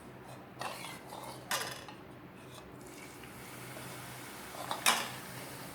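A metal spoon clinking and scraping against a cooking pan while a thick sweet mixture is stirred, with three sharp clinks, the loudest near the end.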